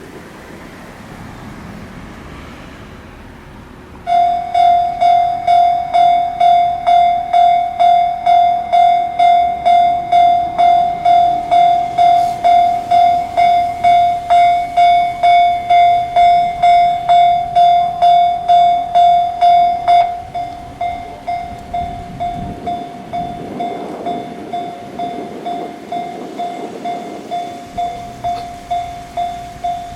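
Japanese railway level-crossing alarm ringing its electronic clanging tone about twice a second, warning that a train is approaching. It starts suddenly about four seconds in after wind noise, and about two-thirds of the way through it becomes quieter and duller but keeps ringing.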